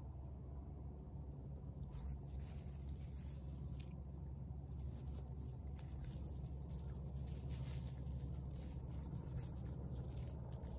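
A tabby cat chewing and crunching fresh fish, with many small crunching clicks from about two seconds in. A steady low rumble runs underneath.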